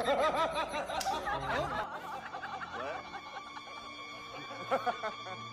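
Laughter, dense and loudest over the first two seconds, then thinner, with a few steady held tones underneath from about halfway through.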